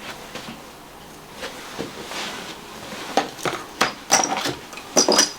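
Cupping cups and their hand pump being put on the skin: a scatter of small clicks, knocks and clinks that comes faster in the second half, with a few brief high squeaks.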